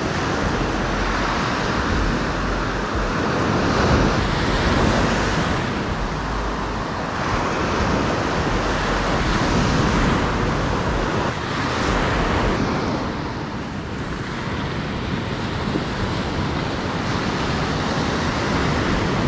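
Ocean surf breaking and washing up the sand, a steady rush that swells and eases every few seconds, with low wind rumble on the microphone.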